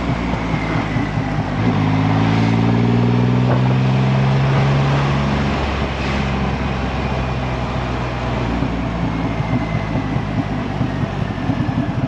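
Triumph Rocket 3 motorcycle's big three-cylinder engine running on the move. About two seconds in it pulls harder and gets louder, its pitch rising a little, then it settles back to a steady cruise around six seconds in.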